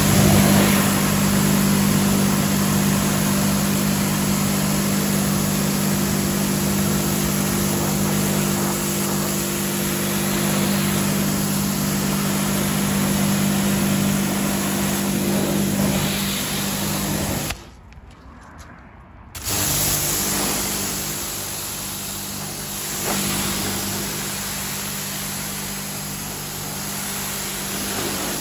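AVA P80 electric pressure washer running, its pump motor humming steadily while the water jet hisses against the vehicle's panels, rinsing off snow foam. It drops out for about two seconds a little past halfway, then starts again.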